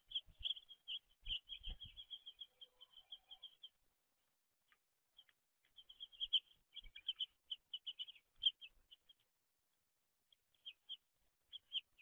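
Small songbirds chirping in quick runs of short, high chirps, in three spells with pauses between. A few soft knocks come about a second and a half in.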